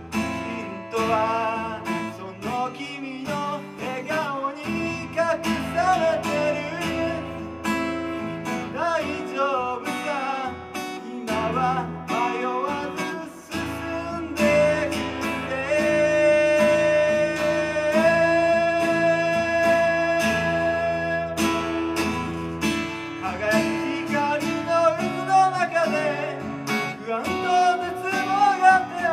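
A man singing to his own strummed acoustic guitar. About halfway through he holds one long, steady note for several seconds.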